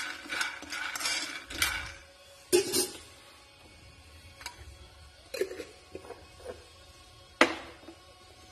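Peanuts roasting in a non-stick frying pan, stirred: quick scraping strokes and rattling nuts for about two seconds, then a few separate clinks of the utensil on the pan, the sharpest near the end.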